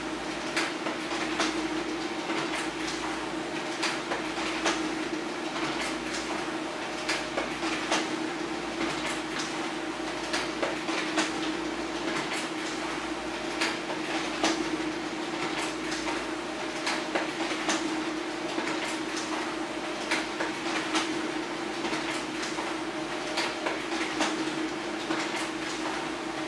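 HP LaserJet Pro M402d laser printer running a two-sided print job: a steady mechanical hum with frequent repeated clicks as pages feed through.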